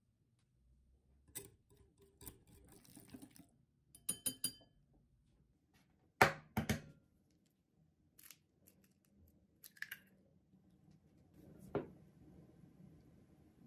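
Kitchen handling sounds of glass bowls and a plastic egg separator: scattered clicks and clinks, then two sharp taps about six seconds in as an egg is cracked against the rim of a glass bowl, and another knock near the end.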